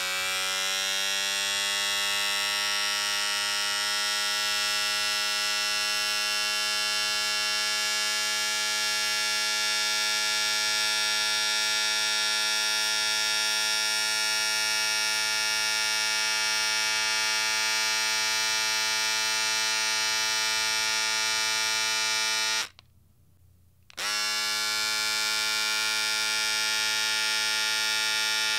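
Electric shaver running with a steady buzz. It is switched off about 23 seconds in and switched back on a second or so later, spinning up quickly to speed again.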